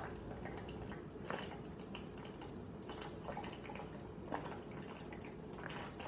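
A man gulping a drink from a bottle: faint swallows and liquid moving in the bottle, heard as scattered soft clicks.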